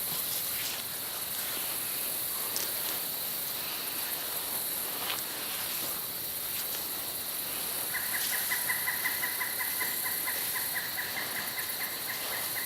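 A steady, high-pitched insect chorus, crickets or katydids, with a few faint clicks. About eight seconds in, a rapid pulsed squeaking chatter at a steady pitch joins it and keeps on to the end.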